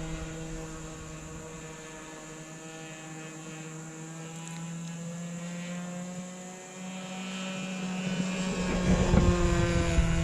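Small glow-fuel engine of a radio-controlled sport plane droning steadily in flight, a single pitched engine note. It fades a little, dips briefly in pitch about two-thirds through, then grows louder near the end as the plane comes closer.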